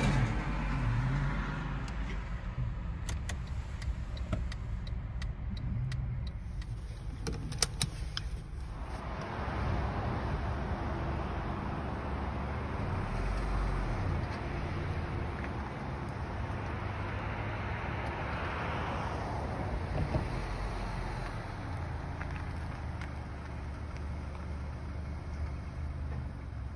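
A car's low, steady rumble, with a few sharp clicks about three and eight seconds in and a wider wash of noise through the middle.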